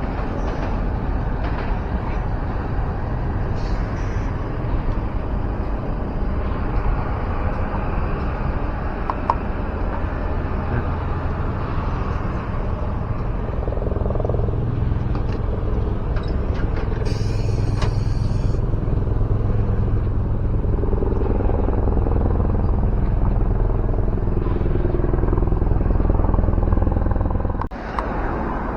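Keio city bus engine running as the bus moves off, with pitch changing as it pulls away. A short hiss of air from the brakes comes about 17 seconds in.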